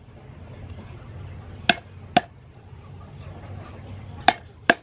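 Cleaver chopping lemongrass stalks on a thick wooden chopping board: four sharp knocks, in two pairs about two seconds apart.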